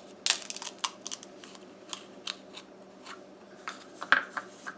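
Brittle shells of ripe tamarind pods cracked and peeled by hand: a run of small, dry, irregular cracks and crackles.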